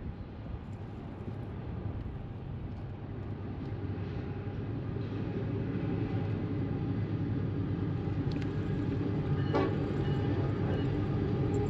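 Low steady mechanical rumble with a hum running through it, slowly growing louder, with a brief rattle about nine and a half seconds in.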